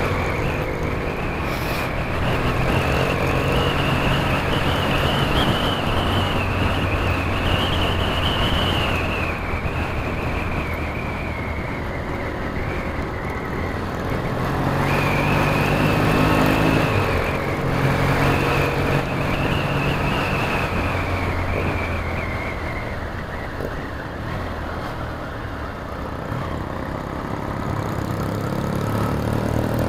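Motorcycle engine running on the move, heard through wind rush on a helmet microphone; the revs climb and drop several times as the bike accelerates and changes gear, most plainly around 15 seconds in and again near the end.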